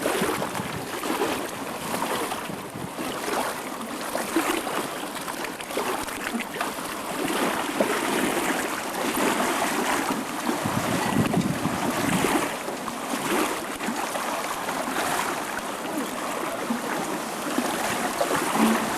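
Water splashing and rushing with wind noise, as heard from a canoe on the water.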